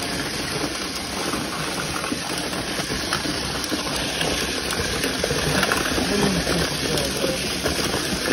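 Many small battery-powered self-righting toy cars running together in a cardboard box: their tiny electric motors whir and the plastic cars knock and rattle against each other and the box walls.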